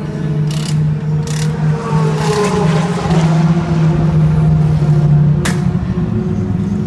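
Pit-stop tyre change on a race car: a pneumatic wheel gun gives a few short bursts, the clearest about five and a half seconds in, over a steady low engine hum. A car engine's note rises and falls around two to three seconds in.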